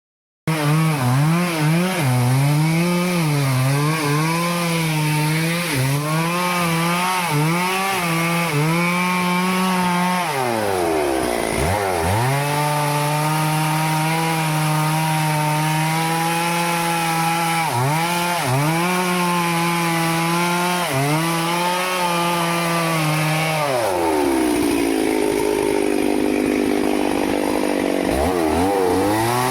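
Stihl two-stroke chainsaw cutting teak wood, its engine pitch wavering as the chain bites and eases. About halfway through, the pitch drops sharply and climbs back, and near the end it runs lower for a few seconds before rising again.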